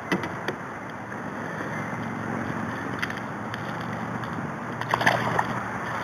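Water lapping and sloshing around a kayak's hull, with a few light knocks of handling on the boat, a small cluster of them near the end.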